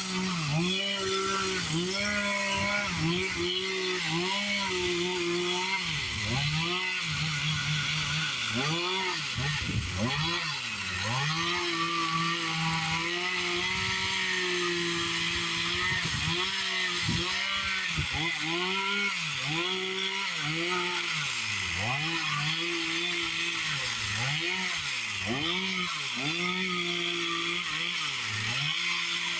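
Chainsaw carving wood, its engine revving up and falling back to a lower pitch every second or two as the throttle is squeezed and eased between short cuts.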